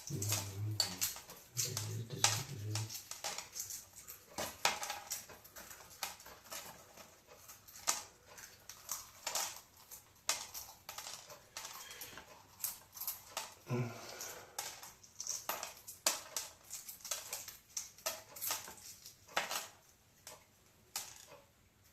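Many small, sharp clicks and crackles of a hard-boiled egg's shell being cracked and peeled by hand.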